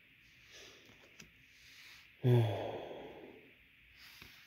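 A man's sigh about two seconds in: a short voiced groan that trails off into breath. Faint rustling and light clicks of trading cards being handled run under it.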